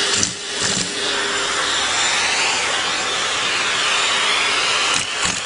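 Vacuum cleaner running steadily with a loud hiss of rushing air, with a few dull bumps near the start and again near the end.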